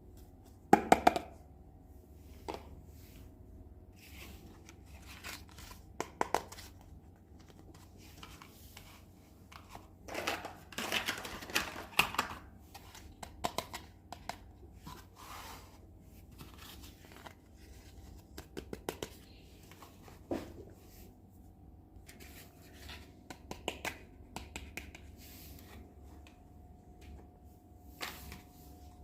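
Hands unpacking a miniature toy kitchen set: scattered light clicks and taps of small pieces, with a stretch of crinkling, tearing packaging about ten to twelve seconds in.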